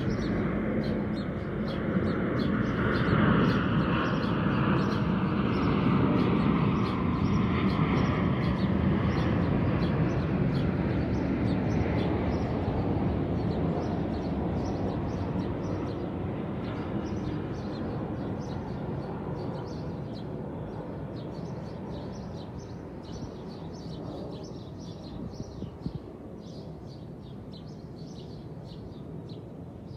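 An airplane passing overhead: a low rumble with a falling whine swells over the first few seconds, then slowly fades away. Small birds chirp throughout, and are clearer as the rumble dies down.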